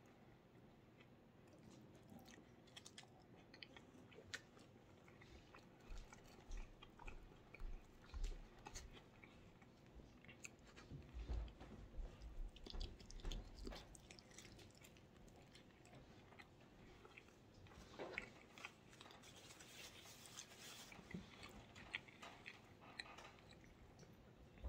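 A person chewing and biting into sauced hot chicken wings close to the microphone: quiet wet mouth sounds and small clicks, louder in patches through the middle.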